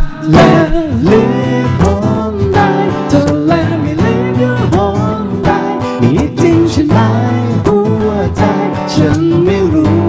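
Live acoustic Thai pop song: a male voice singing over a strummed acoustic guitar.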